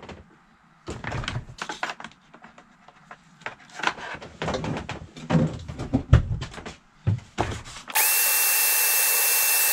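Clicks and knocks of a plug and cord being handled, then a shop vacuum switches on about eight seconds in and runs with a loud, steady rush and a high whine. Running on an inverter, it draws more current than its rating, which may mean it is struggling against a dirty filter.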